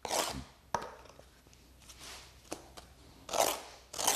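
A steel trowel scraping and spreading mortar onto the back of a thin natural stone veneer piece: a few short scrapes, with light clicks of the trowel against the stone in between.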